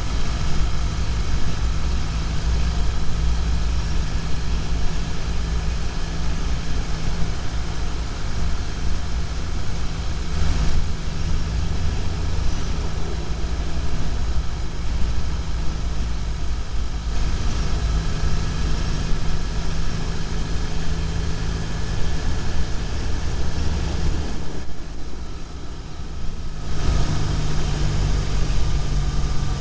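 BMW R1150GS boxer-twin engine running steadily at highway cruising speed, heard from a bike-mounted camera, with a rush of wind and road noise. The sound eases off for a couple of seconds near the end, then picks up again.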